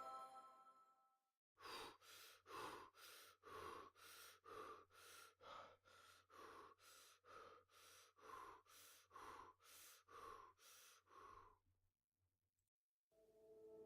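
Faint recorded heartbeat: about nine paired beats, a stronger and a weaker sound in each pair, a little under a second apart, over a low steady hum.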